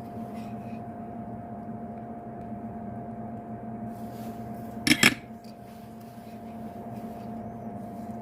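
Steady electrical hum of workbench equipment, with one short, sharp metallic clink about five seconds in, like a metal tool knocking on the bench.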